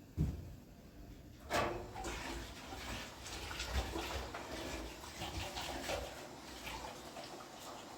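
A knock just after the start, then about a second and a half in water starts running and splashing, with small irregular clatters.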